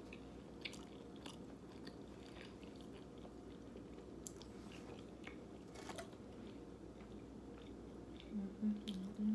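Faint close-miked chewing and biting, with soft crunches and small mouth clicks scattered through. Near the end comes a short, louder, low wavering vocal sound from the eater.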